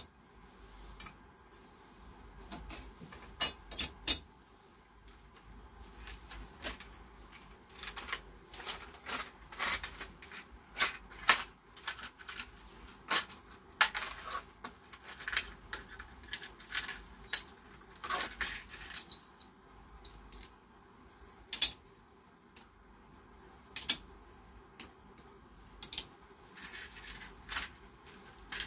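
Irregular clinks and clicks of small aluminium heatsinks and metal parts being handled and set down on a wooden workbench, mixed with the handling of plastic blister packaging.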